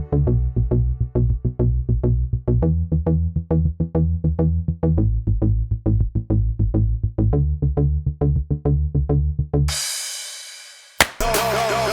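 Electronic background music with a fast drum-machine beat over a stepping bass line. Near the end the beat drops out under a fading whoosh, then a sharp hit brings in a busier section.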